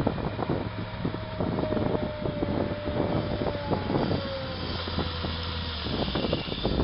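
Volvo wheel loader's diesel engine running under load while it pushes crushed rubble with its bucket, with a thin whine that dips slightly in pitch partway through and irregular clattering knocks throughout.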